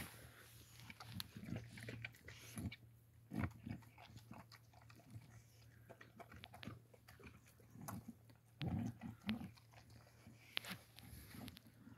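Boxer dog eating from a metal bowl: irregular chewing and biting with short crunches and clicks, loudest a little past three seconds in and again around nine seconds in.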